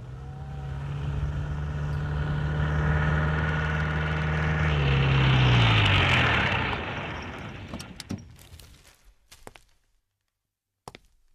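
Maruti Gypsy jeep engine running as it drives up. Its pitch falls as it slows to a stop about five to six seconds in, with a hiss of tyres, then it dies away. A few light clicks follow near the end.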